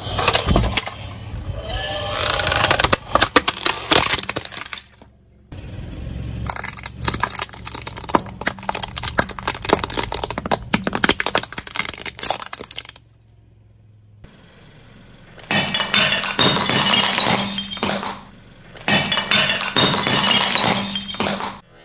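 Brittle things crunching, cracking and snapping as a car tyre rolls over and crushes them. The sound comes in four dense runs of sharp cracks with short breaks between them.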